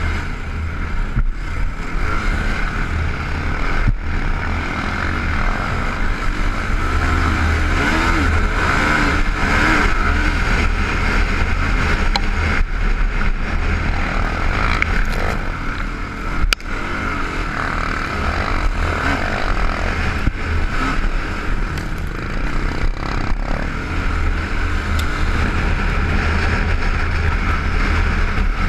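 Can-Am DS450 sport quad's single-cylinder four-stroke engine running hard under race throttle on a dirt track, heard from the rider's helmet camera. The engine note dips briefly about halfway through.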